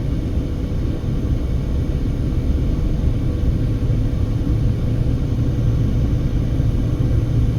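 A car driving at road speed: a steady low rumble of tyres and engine, with a thin steady hum above it.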